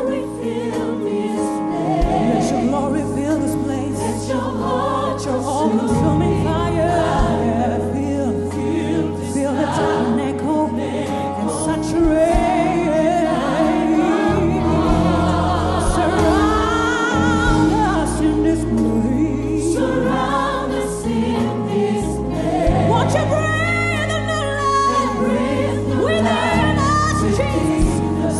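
Live gospel music: a choir singing, backed by a band, over low bass notes that change every couple of seconds.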